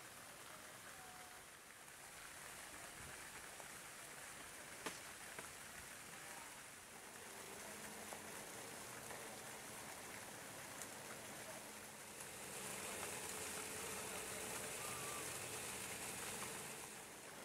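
Steady rushing hiss of fountain water splashing, growing louder about three-quarters of the way through. A single sharp click sounds about five seconds in.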